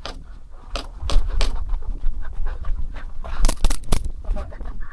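Airsoft gas blowback pistol (SSP5) firing: sharp single shots, then a quick string of about five shots a little past the middle. A low rumble of handling or movement runs beneath the shots.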